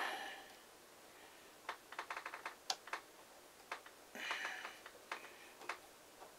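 Faint, irregular small clicks and ticks of a small screwdriver and a nut being worked onto the nose-gear mount of a model airplane, with a quick run of ticks about two seconds in and a brief rustle a little past four seconds.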